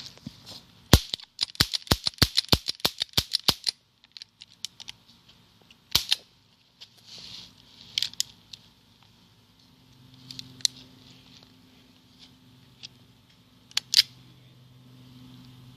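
Air gun firing sharp, snappy shots: one shot about a second in, then a fast string of about a dozen at roughly five a second. Single shots follow a few seconds apart.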